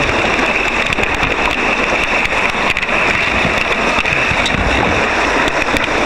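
Steady loud rush of water and wind as a surfboard is towed at speed through the wake of a motorboat, with spray and wind hitting the board-mounted microphone.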